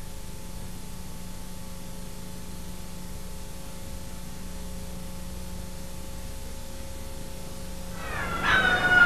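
Steady electrical hum and hiss of an old VHS tape recording, with no other sound for about eight seconds. Near the end a louder sound of high, wavering pitches starts up suddenly and grows.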